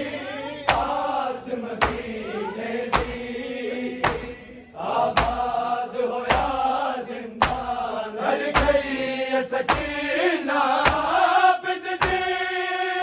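A group of men chanting a noha lament in unison, their drawn-out sung lines marked by a loud, even beat of matam, hands striking chests about once a second.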